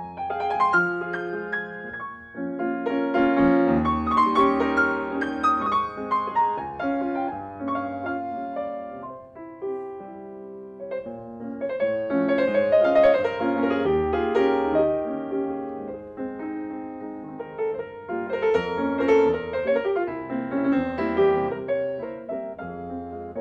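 Grand piano played solo, a classical piece in swelling phrases that grow loud and fall back, with a softer passage about ten seconds in.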